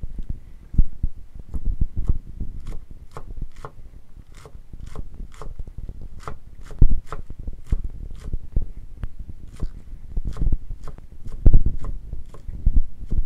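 Chef's knife chopping lettuce on a bamboo cutting board, in a steady rhythm of about two cuts a second, each cut a sharp tap on the board.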